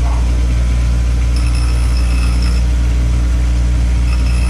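Bench grinder motor running with a steady hum. Twice, about a second and a half in and again near the end, a high-pitched whine joins as the transmission's manual valve is pressed against the wheel to grind a 45-degree chamfer on its edge.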